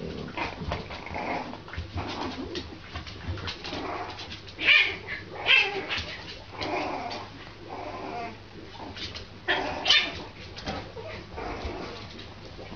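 French bulldog puppy giving a run of small yappy barks and grumbles, with the loudest yips about five seconds in and again near ten seconds in.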